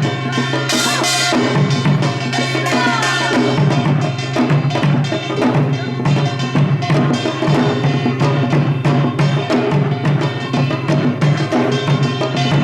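Samulnori percussion ensemble playing together: kkwaenggwari small gong, jing gong, janggu hourglass drum and buk barrel drum, beating out a dense, steady rhythm.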